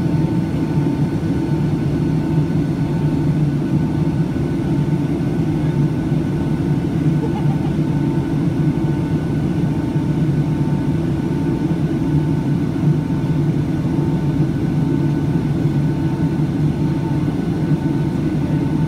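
Steady cabin noise inside a Boeing 757-200 in flight: an even low rumble of jet engines and rushing air, with a faint steady whine above it.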